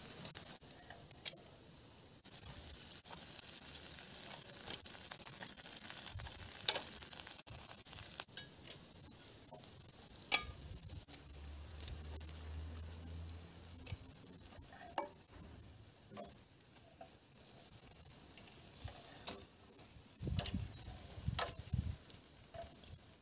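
Metal tongs clicking and tapping against a charcoal grill's grate and an enamel bowl as toasted bread slices are turned and lifted, about a dozen separate sharp clicks, over a faint sizzling hiss from the grill. A few dull low knocks come near the end.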